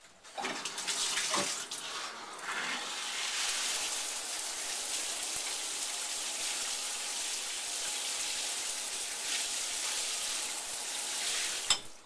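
Water running from the newly fitted handheld shower, turned on about half a second in and shut off abruptly near the end: a test run of the new hose connection, which still leaks a little.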